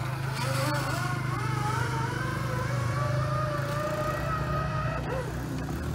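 Zipline trolley running along a steel cable: a wavering whine that rises slowly and then holds, stopping about five seconds in. Under it runs a steady low drone.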